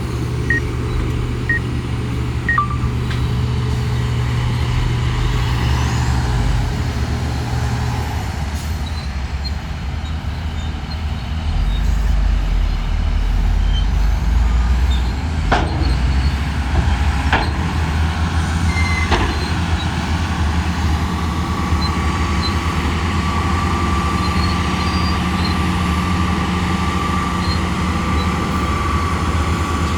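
Diesel engine of a Shantui crawler bulldozer running steadily, its note changing and growing louder for a few seconds as it works, with a few sharp knocks about halfway through and a thin whine in the later part.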